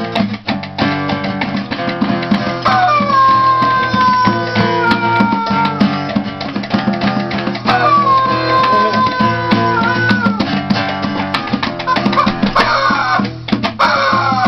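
Strummed acoustic guitar with fast bongo taps, and a rubber chicken squeezed into two long squawks that slide down in pitch, about three and eight seconds in, then shorter wavering squawks near the end.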